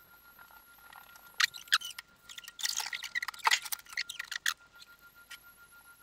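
A 3D pen running with a faint steady whine as it lays plastic filament along the edge of a plastic box. From about a second and a half in, for some three seconds, there is a burst of sharp clicks and crackles.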